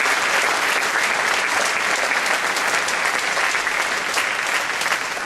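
Theatre audience applauding steadily, starting to thin out near the end.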